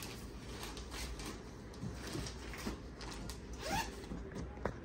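Rustling, scratchy handling noise from cloth and its packaging being moved about, with a brief rising squeak near the end.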